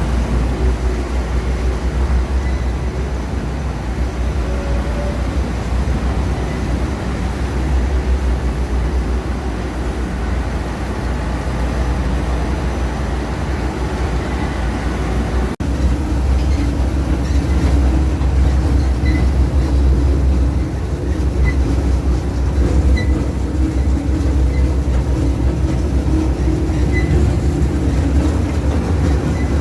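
Hitech-SH10T industrial scrap-fabric and waste shredder running under load, a steady heavy rumble. The sound breaks off briefly about halfway, then the machine runs a little louder, with a faint tick about once a second.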